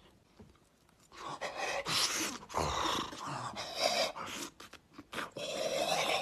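A young man's exaggerated gasping, huffing and groaning through a wide-open mouth as he reacts to a mouthful of too-hot food, starting about a second in as a run of loud, irregular breathy blasts.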